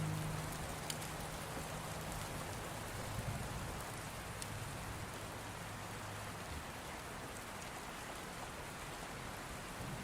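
Steady rain falling, an even hiss with a few scattered drop ticks. Low held notes of soft background music sound underneath and fade out about six seconds in.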